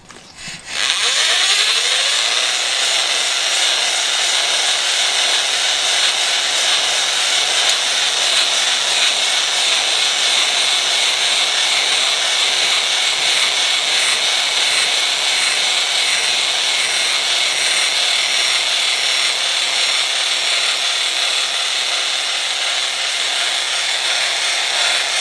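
Electric drill spinning up about a second in, then driving a fixed-stone cylinder hone in a bore of a Jeep 4.0 straight-six cast-iron block: a steady scraping grind of the honing stones on the cylinder wall over the drill's motor whine. The drill is run at reduced speed with a longer stroke to lay a steeper crosshatch for the new rings.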